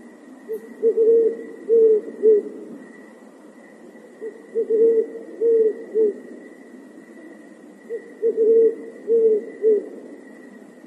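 Owl hooting: a phrase of about five low hoots, repeated three times about every three and a half seconds, over a steady thin high tone.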